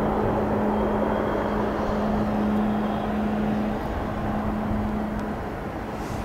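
Boeing 777-200's General Electric jet engines running at taxi power as the airliner rolls past: a steady rush with a low hum that fades out about five seconds in, the level easing slightly near the end.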